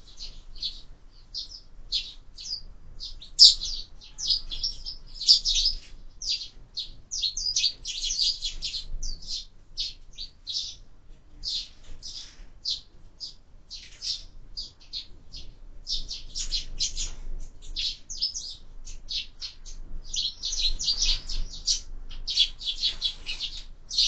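Sparrows chirping: a steady run of short, high chirps that thickens about eight seconds in and again from about twenty seconds on.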